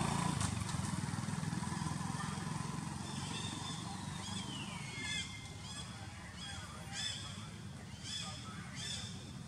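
Monkeys giving short, high-pitched screeches, about one a second, with one call sliding down in pitch, over a steady low engine rumble.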